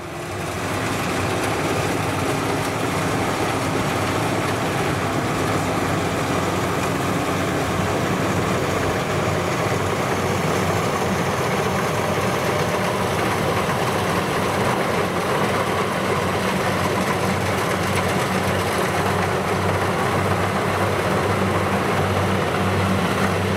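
Kubota DC70 rice combine harvester running steadily under load while cutting and threshing rice, a continuous mix of diesel engine and threshing machinery.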